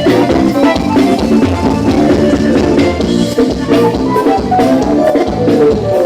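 Instrumental worship-band music with a drum kit keeping a steady beat under held notes; no singing.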